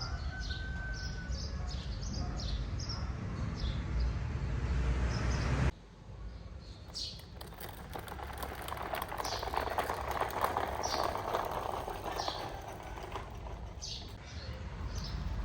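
Birds chirping repeatedly over a steady low rumble. The rumble cuts off abruptly about six seconds in, leaving an even noisy background under the chirps.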